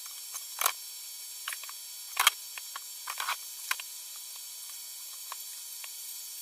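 Scattered small clicks and knocks of hand work with small parts and tools, the loudest about two seconds in, over a steady hiss.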